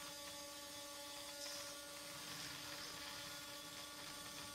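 Hobby servo motors of a small robot arm giving a faint, steady hum as they drive and hold the arm.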